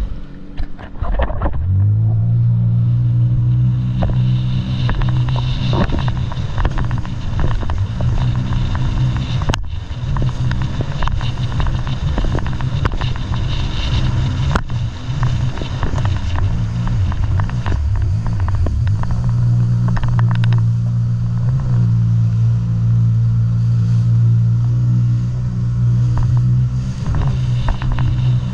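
Jet ski engine running at high speed with a steady drone, which comes up to full note about two seconds in. Water splashes against the hull, and there is wind on the microphone.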